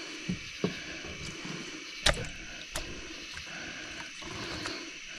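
A flathead catfish being handled on a boat floor while the hook is worked out of its mouth: four sharp knocks and thumps, the loudest about two seconds in, over a steady high hiss.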